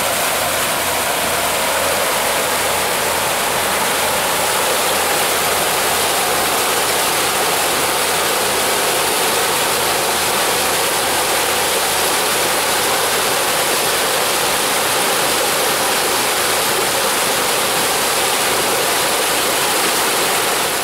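Steady rush of churning wake and propeller wash behind a 1998 Sea Ray 330 Sundancer running under power, with a faint engine drone underneath.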